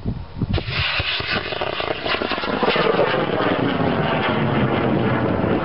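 Model rocket motor lighting about half a second in and burning with a loud, steady rushing noise, a tone within it falling in pitch as the rocket climbs away.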